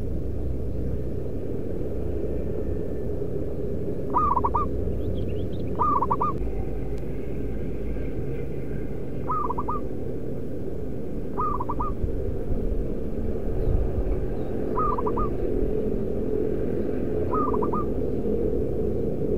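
Zebra dove giving short cooing calls six times, each a quick run of about three notes, a few seconds apart, over a steady low rumble.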